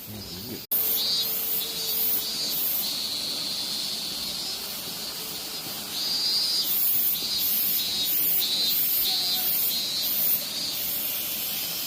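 Robust cicadas (minmin-zemi) singing loudly: a steady droning buzz that, from about halfway, breaks into a pulsing "min-min-min" at about two pulses a second, then settles back into a steady drone near the end.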